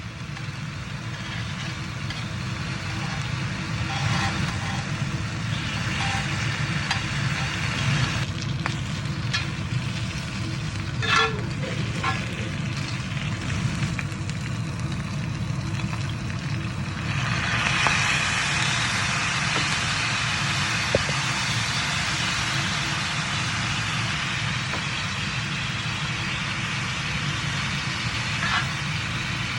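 Meat starts sizzling in a hot pan about halfway through and keeps frying steadily, over a constant low hum. Before that there are a few light clinks of cooking utensils.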